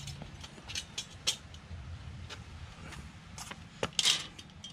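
Light metallic clicks and taps of kitchen tongs on a tile patio and a metal grill grate while picking up prickly pear fruit, with a louder clatter about four seconds in.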